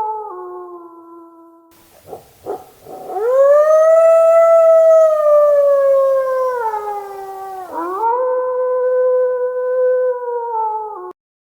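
Wolf howling: a long howl that rises and then slowly falls, preceded by two short sounds about two seconds in. A second, steady howl follows and cuts off suddenly near the end.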